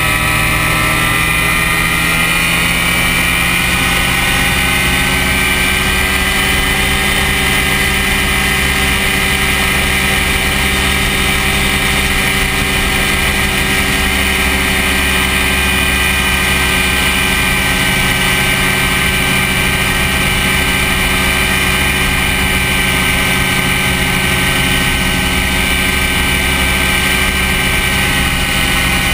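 Skyrider ultralight aircraft's engine and propeller running steadily in flight, heard on board with a rush of wind. The engine note rises a little over the first few seconds, then holds steady.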